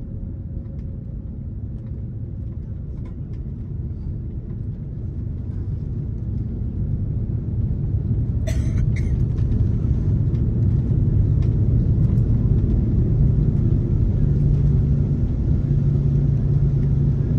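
Cabin noise of an Airbus A330-343 rolling on the ground after landing: a steady low rumble of engines, airframe and wheels that grows louder over the first half. There is a single sharp click about eight and a half seconds in, and a steady low engine drone strengthens near the end.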